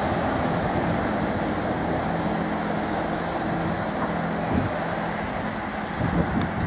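Class 158 diesel multiple unit's underfloor diesel engines running with a steady drone as the train pulls away, slowly fading.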